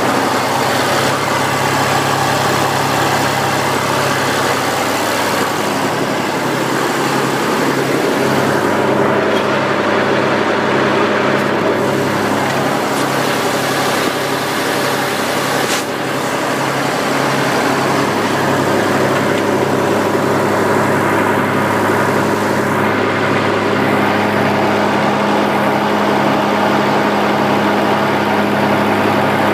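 Massey Ferguson 35X tractor's three-cylinder diesel engine running steadily. About five seconds in, a regular pulsing note joins it, repeating a little under twice a second.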